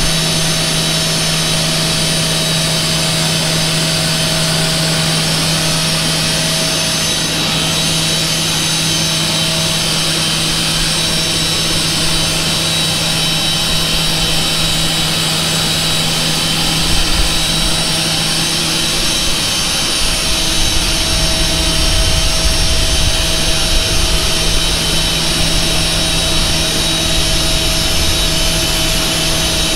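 Jet aircraft turbine running at a steady whine, several fixed tones over a continuous rush. A low rumble grows louder about two-thirds of the way in.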